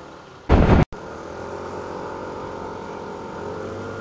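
A brief, very loud burst of noise about half a second in breaks off into a moment of dead silence. After it, the Rusi ADX150 scooter's 150cc liquid-cooled, four-valve engine runs steadily under way.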